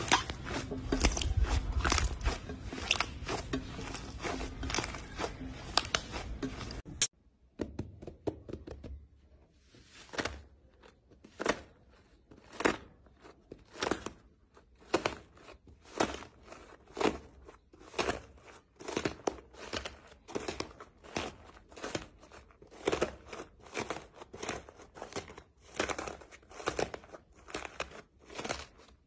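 Slime being squeezed and kneaded by hand, with dense crackling and popping. It cuts off abruptly about seven seconds in, then comes back as rhythmic squeezes, each a short crackling squish about once a second.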